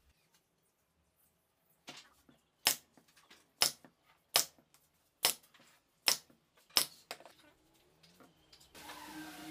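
A nail gun fires about seven times, driving nails through a wooden hexagon into the top of a stick frame. Each shot is a sharp crack, coming a little under a second apart, and the first is faint. Music comes in near the end.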